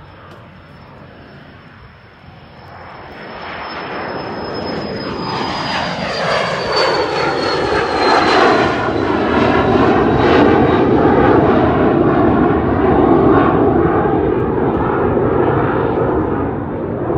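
Cessna 560 Citation Ultra business jet climbing out just after takeoff and passing overhead, its twin Pratt & Whitney JT15D turbofans at takeoff power. The sound swells from faint to loud from about three seconds in, with a high whine that slowly drops in pitch as the jet goes by, then stays loud as it climbs away.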